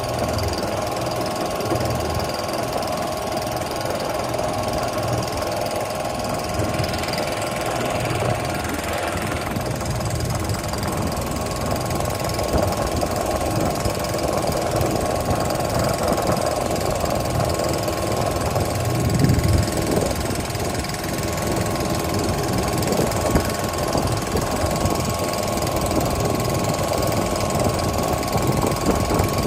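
A motor running steadily at idle, with a low regular pulse underneath and a thin steady whine.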